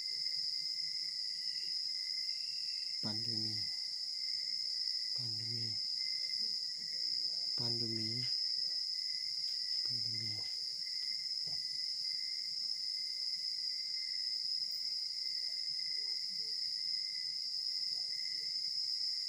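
Steady chorus of crickets trilling. A low voice makes four short murmured sounds, each about half a second long, a couple of seconds apart in the first half.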